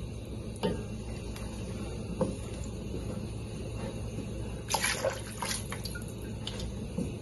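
Wooden spoon stirring thick masala gravy in a stainless steel pan: wet sloshing with a few knocks and scrapes of the spoon against the pan, busiest about five seconds in, over a steady low hum.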